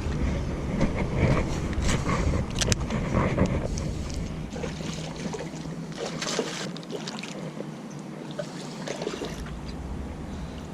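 Wind rumbling on the microphone outdoors, easing after about four seconds, with scattered light clicks over a quieter outdoor hiss.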